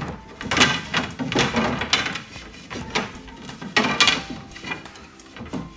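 Particleboard bed drawer on rollers being fitted and slid into a bed frame: a run of knocks and scraping, loudest about two and four seconds in.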